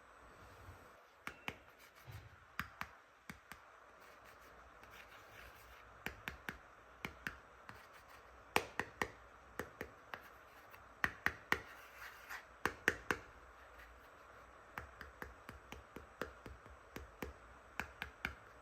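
Hands handling plastic toy pieces: irregular sharp clicks and taps, sparse at first and coming thick and fast from about a third of the way in, with a short lull before a last cluster near the end.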